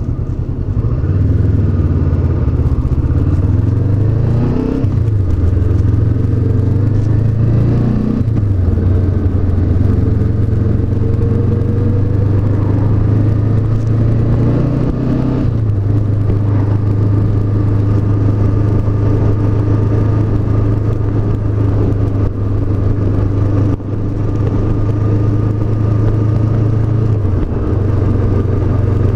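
Honda CB500X's 471 cc parallel-twin engine under way, its note rising and falling over the first half, then holding steady.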